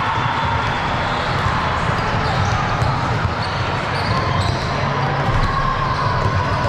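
Basketball being dribbled on a gym floor during live play, over a steady background of voices in a large hall.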